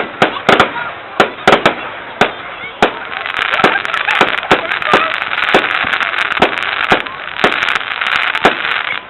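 Fireworks going off: a rapid, irregular string of sharp bangs and pops, several a second, with a dense crackling hiss building from about three seconds in.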